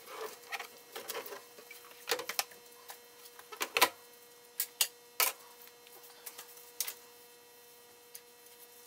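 Hard plastic parts of an Aerogarden being fitted back together: scattered clicks and knocks as the pump tower, deck and lid are set and snapped onto the water bowl. A faint steady hum runs underneath.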